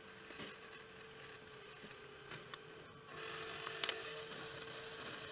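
Desktop 3D printer running as it starts a print: a steady high whine over a low hum. About three seconds in a louder, even whirring sets in, with a few light clicks.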